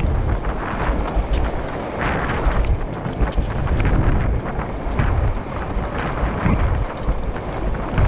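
Wind buffeting the microphone over the rumble of a mountain bike riding fast down a bumpy dirt track, with frequent small knocks and rattles as the bike and camera jolt over ruts.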